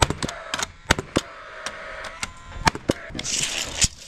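Paslode cordless framing nailer firing nails into a timber roof truss: several sharp shots a second or so apart, with a faint whine between them. A short hiss comes near the end.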